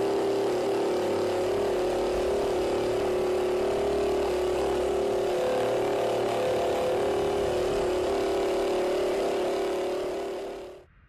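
Prototype INNengine E-REX opposed-piston engine running at a steady speed on a test bench, giving an even, high-pitched hum that fades out near the end.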